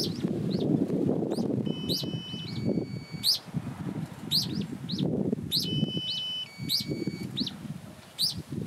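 Wild birds calling: short, sharp high chirps repeating every half second to a second, with a few brief held whistled notes, over a constant low rustling noise.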